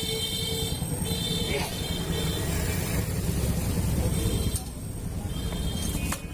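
A low, steady engine rumble, with faint music over it.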